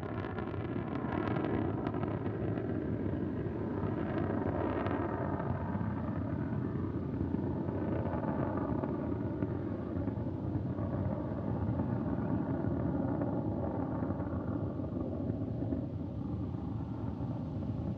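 Soyuz rocket's four strap-on boosters and core stage firing on the first-stage burn, a steady, even rumble.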